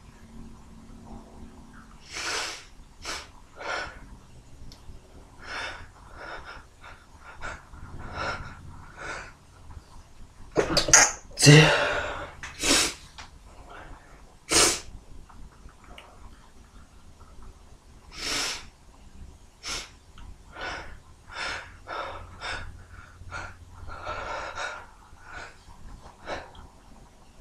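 A man's stifled sneezes, dozens of short, sharp bursts one after another, the loudest about eleven to fifteen seconds in.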